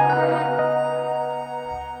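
Background music: soft, sustained ambient notes over a low held bass tone, slowly fading.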